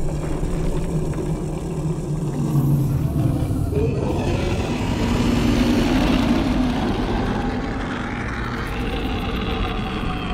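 Long, low growl of the dragon Vermithor, a film sound effect; it wavers in pitch and shifts higher about four seconds in.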